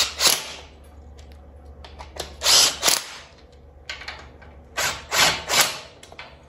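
Small cordless impact driver running bolts down in several short bursts with pauses between: one right at the start, a longer one about two and a half seconds in, and three quick ones around five seconds in.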